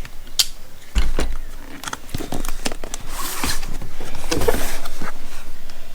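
Cardboard shipping box being handled and opened: scattered knocks and clicks, with two longer rustling stretches about three and four and a half seconds in.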